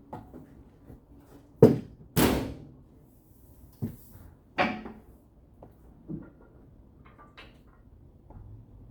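Several metal knocks and clanks from work on a car's sheet-metal body. The loudest comes about two seconds in and rings briefly, and smaller ones follow at irregular intervals.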